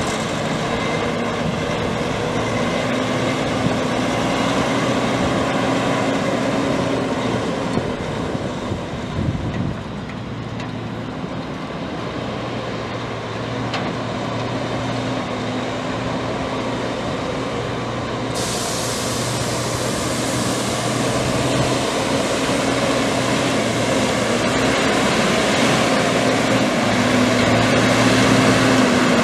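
Caterpillar C13 six-cylinder diesel of a Peterbilt 357 dump truck running with a steady engine note. It dips briefly about ten seconds in, then gradually grows louder toward the end.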